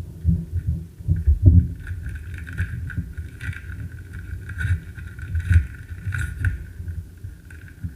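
A trading-card pack wrapper being torn open and crinkled by hand, with irregular crackles and clicks over low rumbling handling noise close to the microphone.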